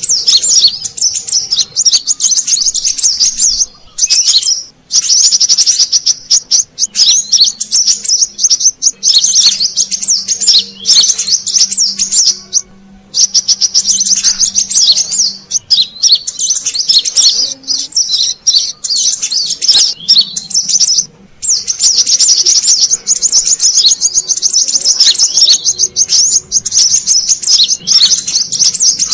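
Brown-throated sunbird (kolibri kelapa) song played as a trapping lure: fast, high-pitched twittering chirps in long runs, broken by a few short pauses.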